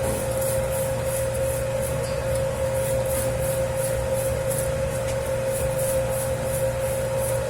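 Dough mixing machine kneading a 10 kg batch of pizza dough: a steady motor whine over a low hum, with a soft hiss that pulses about three times a second as the dough turns.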